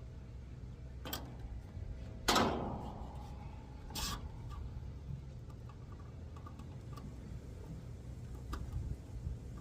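Handling and tool noises during HVAC installation work: a light knock, then one loud sharp clank about two seconds in that rings briefly, another knock a moment later, and a few faint ticks, over a steady low rumble.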